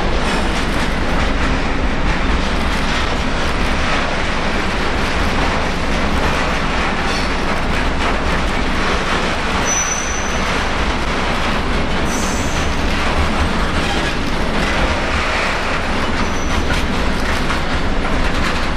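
Train running through on the rails with steady wheel-on-rail noise. Brief high-pitched wheel squeals come three times in the second half.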